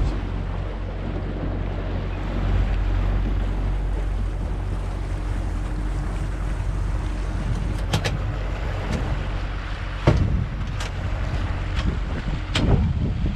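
Yamarin 63 DC motorboat under way: a steady low outboard engine drone under wind and water rush. A handful of sharp knocks come in the second half.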